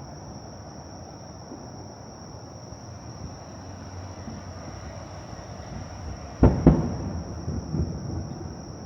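Fireworks going off: two sharp bangs in quick succession about two-thirds of the way through, followed by a few fainter pops.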